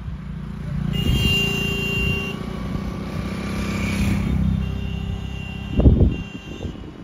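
Road traffic passing close by: motorcycle and other vehicle engines grow louder about a second in and run on, with one vehicle passing about four seconds in. A short, loud, low thump comes near the end.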